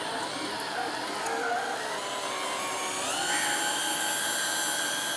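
Makita cordless drill running a hand-crank meat grinder at slow speed, a steady motor whine as meat is fed in. About three seconds in the whine rises in pitch and holds higher, as the drill's self-locking chuck works loose on the grinder's shaft.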